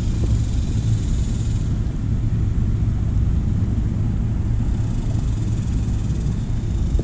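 Wind buffeting the camera microphone: a steady, rough low rumble with a faint hiss above it.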